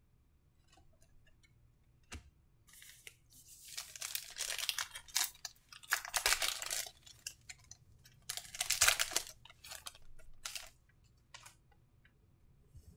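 A trading-card pack's wrapper being torn open and crinkled in the hands, with two main bouts of crackling about four and nine seconds in, then a few short rustles as the cards are handled.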